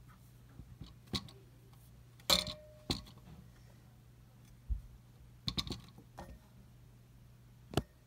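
Scattered light clicks and taps, about seven spread irregularly, over a steady low hum.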